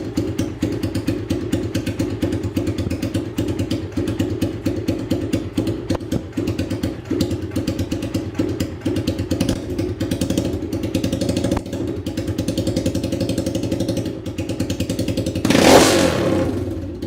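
Triton 450 supermoto engine running with no exhaust fitted, a rapid pulsing beat at low revs. Near the end it is blipped once, loudly, then drops back and dies away.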